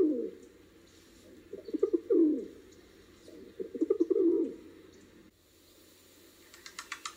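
Rock pigeon cooing: three low, rolling coos about two seconds apart, each falling in pitch at the end. Near the end there is a quick run of clicks, about ten a second.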